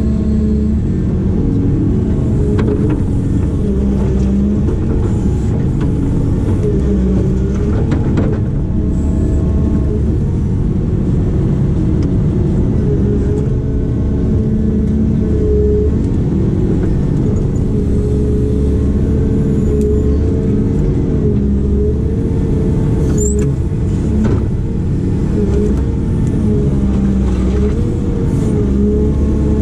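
Heavy construction machine's diesel engine running continuously under working load, its pitch wavering up and down as the hydraulics are worked, with a few brief knocks.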